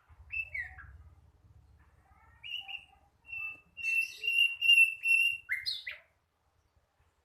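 Sikatan londo flycatcher, a young bird still learning its song, singing a halting phrase: a few scattered chirps, then a run of short high notes on one pitch, closing with two quick sliding calls.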